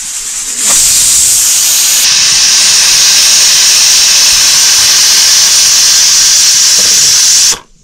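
A loud, steady hiss that starts suddenly about a second in and cuts off suddenly near the end.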